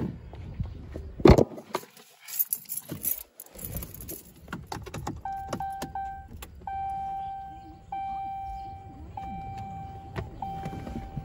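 Keys jingling and knocks as a Ram 1500 pickup's driver door is opened and the cab is climbed into. Then the truck's warning chime sounds as a steady tone, repeating in roughly one-second pulses with short breaks, with the door standing open.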